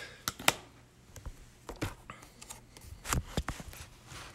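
A handful of light clicks and taps from things being handled on a tabletop, spaced irregularly over a few seconds, with faint room noise between them.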